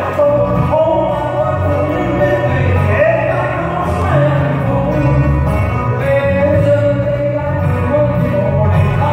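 Live bluegrass band playing: five-string banjo, electric bass and acoustic guitar, with a voice singing the melody.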